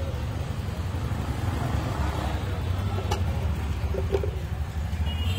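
Steady low rumble of street traffic, with two faint short clicks about three and four seconds in.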